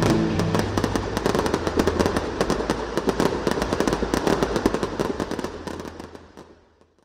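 Fireworks and pyrotechnic fountains crackling and popping in a dense, rapid string of bangs, fading away over the last second and a half. Held notes of a music track die out about half a second in.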